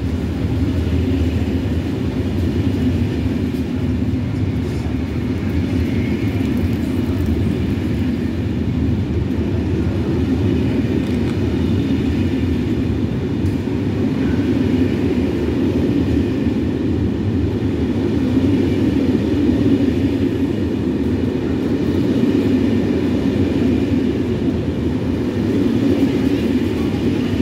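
Intercités passenger coaches rolling steadily past along the platform: a continuous low rumble of wheels on the rails, with a faint higher whine over it.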